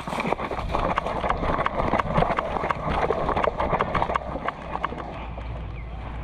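Running footsteps on rough ground: a quick, uneven patter of footfalls, busiest in the first few seconds and a little quieter near the end.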